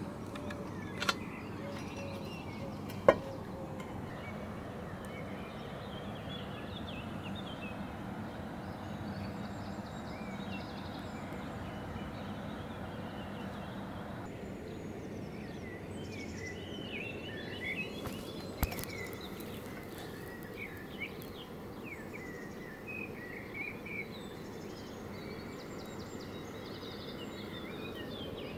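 Outdoor ambience: a steady background hiss with small birds chirping, mostly in the second half. A sharp knock comes about three seconds in, with a few smaller clicks around it and later.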